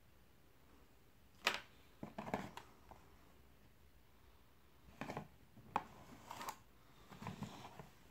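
Cardboard product box being handled and its flaps opened: scattered sharp clicks and short papery scrapes in several small clusters.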